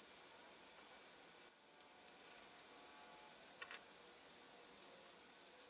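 Near silence: faint room hiss with scattered small ticks and clicks from bending resistor leads with pliers and seating the resistors on a circuit board, the sharpest pair about three and a half seconds in.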